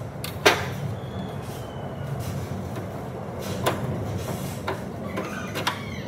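A twisted steel rod is knocked and rattled as it is worked free from a pipe-threading machine. A sharp metal clank comes about half a second in, another comes mid-way, and lighter clinks follow near the end, all over a steady low mechanical hum.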